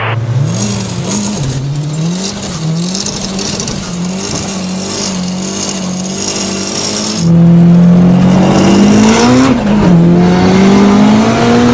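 Turbocharged Nissan KA four-cylinder in a 240SX revving hard, its pitch climbing and dropping again and again. About seven seconds in the sound cuts to a louder run of the same engine climbing in pitch.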